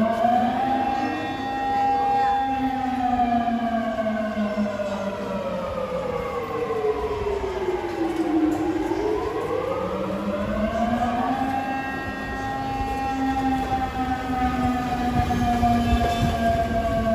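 A public warning siren wailing in long, slow glides: its pitch holds high, falls steadily for about six seconds, climbs again and begins another slow fall. A low rumble joins near the end.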